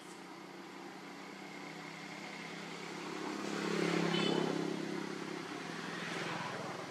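A motor vehicle's engine running with a steady hum. It grows louder to a peak about four seconds in, then fades, with a smaller rise near the end.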